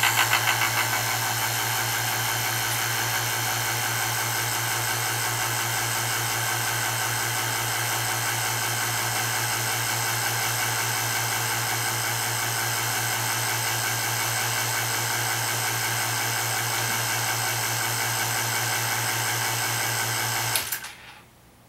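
Vacuum pump running steadily with a strong hum, switched on by the pressure controller when the chamber vacuum fell to −97 kPa, then cutting off near the end as the chamber reaches −98 kPa, the controller's cut-off point.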